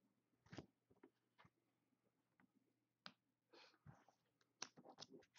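Near silence: room tone with a few faint, short clicks and rustles, more of them in the second half.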